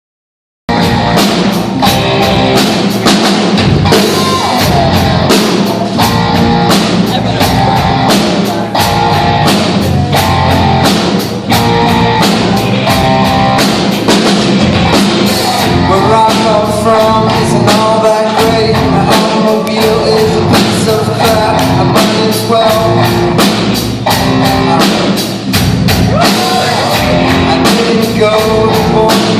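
Rock song played by a band, with a steady beat on a drum kit, guitar and singing, starting about half a second in.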